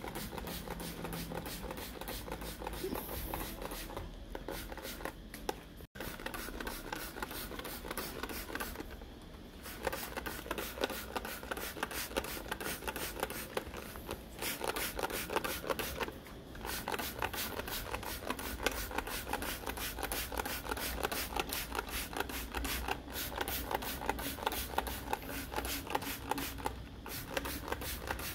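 Hand trigger spray bottle misting plants, pumped over and over in quick strokes, each pull a short spray hiss, with a few brief pauses between runs.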